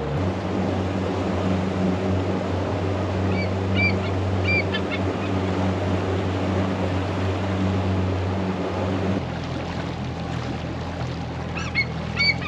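Bald eagle calling in two bursts of short, high chirps, one a few seconds in and another near the end. Underneath is the steady low hum of the boat's motor, which changes pitch slightly after about nine seconds.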